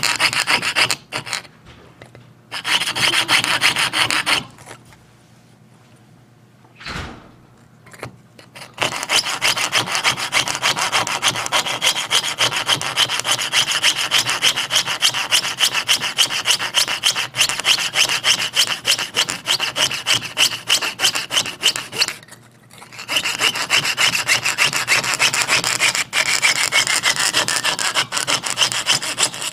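Jeweler's piercing saw with a fine blade cutting out the crossings of a clock wheel blank in fast, even strokes. It pauses briefly about two seconds in, for a longer spell from about five to nine seconds with one knock in the middle, and again near twenty-two seconds.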